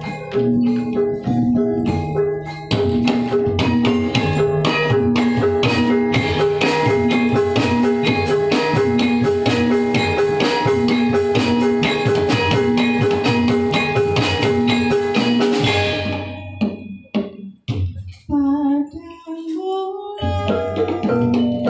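Dance accompaniment music with drums and mallet percussion keeping a steady beat. About 16 seconds in it thins to a short passage with a wavering melody line, and the full ensemble comes back near the end.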